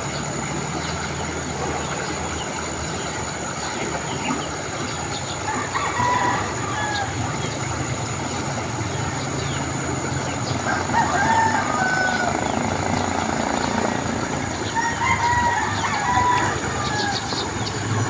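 Roosters crowing three times, a few seconds apart, over a steady outdoor background noise with a low hum.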